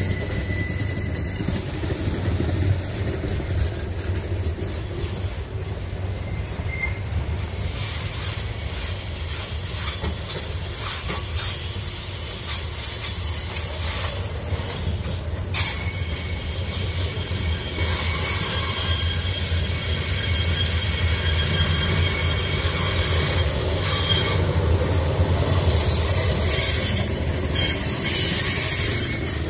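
Freight train of covered grain hopper wagons rolling past on steel wheels: a steady rumble of wheels on the rails, with faint wheel squeal in the later part and a single sharp knock about halfway through.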